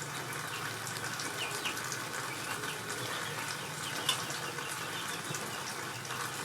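Steady background hiss with a low hum, and scattered faint, short bird chirps.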